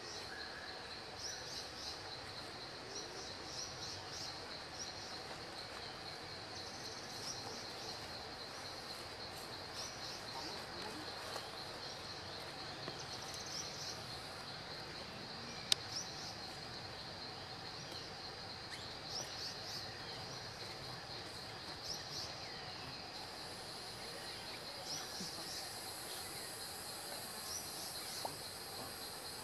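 Woodland ambience: a steady high-pitched insect drone with short, repeated bird chirps over it. There is one sharp click about sixteen seconds in, and a second, higher insect hiss joins about two-thirds of the way through.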